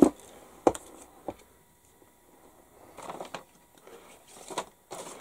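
Small hobby tools being handled on a cutting mat: three sharp taps in the first second and a half, the first the loudest, then softer handling and rustling noise later on.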